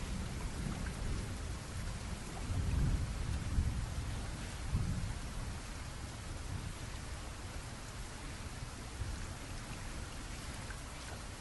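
Thunderstorm: steady rain with a low rumble of thunder that swells and dies away in the first half, leaving rain alone.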